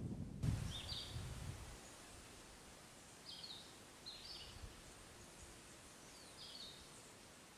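A bird calling in short high chirps, four calls a second or more apart, over a faint outdoor hiss. A low rumble in the first second or so is the loudest sound and fades out.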